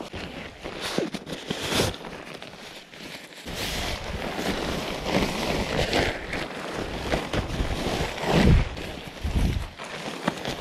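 Rustling and flapping of a packraft's coated-fabric hull as it is pulled from its bag and unfolded, with wind buffeting the microphone and two low thumps near the end.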